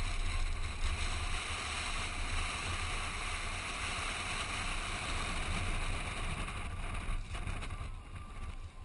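Wind rushing over a GoPro mounted on the outside of a Toyota Prado driving across desert sand, over a low rumble from the moving vehicle. The rush fades near the end.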